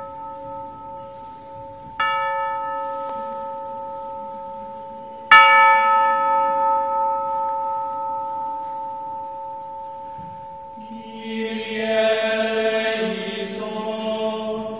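A bell struck twice, about two and five seconds in, each stroke ringing on with a long slow fade, the second the loudest. Chanted singing comes in near the end.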